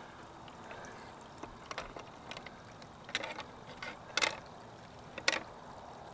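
Blue-handled hand tool working the loose nuts on a hand-crank winch: a handful of short, sharp metal clicks and clinks, irregularly spaced, the loudest about four and five seconds in.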